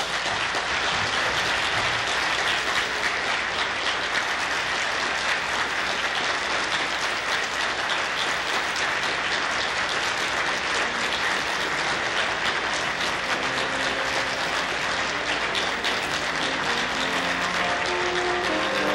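An audience clapping steadily and densely. Near the end, music comes in faintly underneath the applause.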